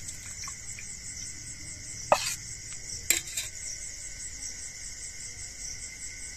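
Crickets chirring steadily, with two sharp metallic clinks of steel utensils, a spoon against a steel pot or plate, about two and three seconds in, the first ringing briefly.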